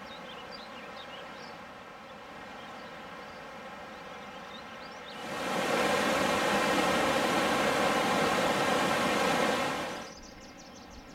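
Fast, swollen river rushing over rocks: a loud, even rush that comes in abruptly about five seconds in and cuts off about five seconds later. Around it is a quiet outdoor background with a few faint chirps.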